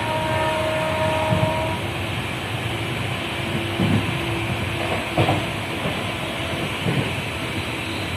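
Passenger train running along the track: a steady rumble with a few short knocks spaced a second or two apart. A faint steady tone sounds at the start and stops under two seconds in.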